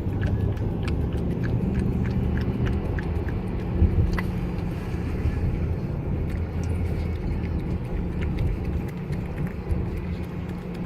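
Steady low rumble of a running vehicle, with scattered faint clicks.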